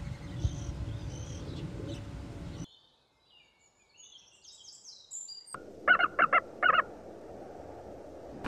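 Bird calls: a run of short, high chirps, then four loud, short calls in quick succession a little past the middle.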